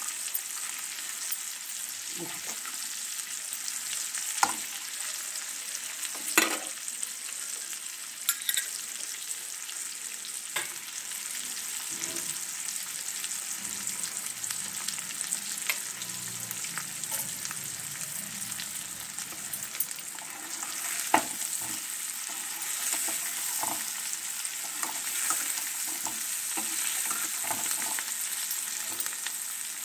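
Boiled taro root (arbi) pieces sizzling steadily in oil in a pan over low heat, with a spatula stirring them and now and then knocking sharply against the pan.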